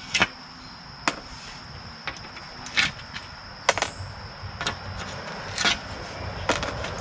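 End-cutting nippers pulling nails out through the back of painted door trim: a string of separate sharp snaps and clicks, about seven, a second or so apart.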